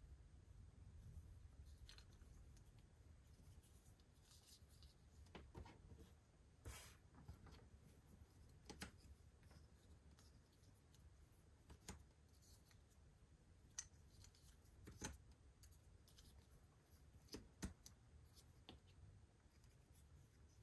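Faint, irregular clicks and brief rustles of cardboard jigsaw puzzle pieces being handled and pressed into place on a table, over near silence.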